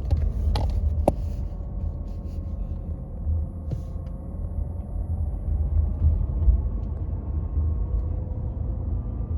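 Low road and drivetrain rumble inside a moving Mercedes-Benz C-Class (W205), with a faint steady whine and a few sharp clicks in the first four seconds. The owner hears an abnormal noise while driving.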